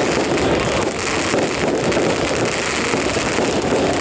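Fireworks crackling, a dense, steady din with no single bang standing out.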